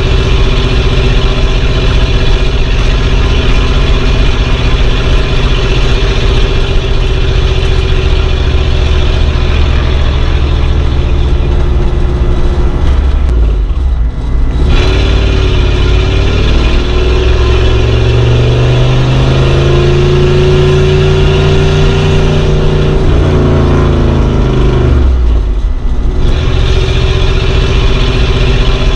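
An old car from around 1950 being driven, its engine running steadily. About halfway there is a brief drop, then the engine note rises as it accelerates. It falls away again, drops once more and settles back to steady running.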